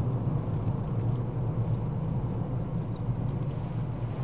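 Steady cabin noise of a small Ford Fiesta hatchback driving along: a constant low engine and road rumble.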